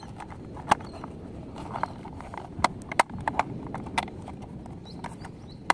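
Hard plastic toy car parts clicking and knocking as they are pressed and snapped together by hand: irregular sharp clicks, the loudest about three-quarters of a second in and around three seconds in.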